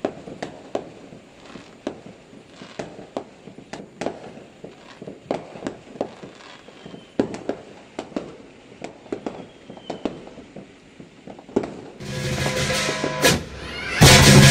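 Distant fireworks going off: a scattered run of sharp, irregular bangs and pops. About twelve seconds in, it changes to a much louder Chinese lion-dance percussion band, with a big drum, clashing cymbals and gongs.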